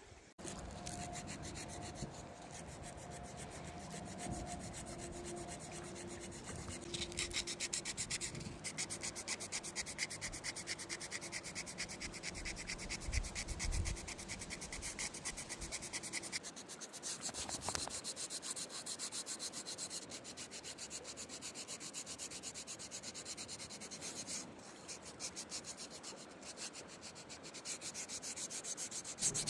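Coarse 60-grit sandpaper rubbing on a cherry wood spoon in quick, even back-and-forth strokes.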